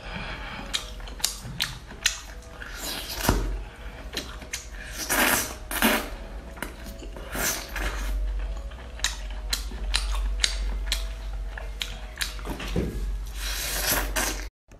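Close-up mouth sounds of eating seafood in chili sauce: a quick, irregular run of wet smacking, sucking and chewing clicks, over a steady low hum.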